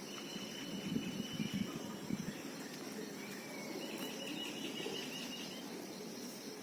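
Birds calling outdoors over a steady high-pitched insect drone: a thin held whistle near the start, then a rapid trill in the middle. Low rumbling bumps, like wind on the microphone, come and go in the first two seconds.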